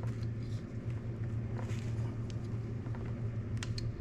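Faint clicks and light taps of small carburetor parts being handled over a steady low hum.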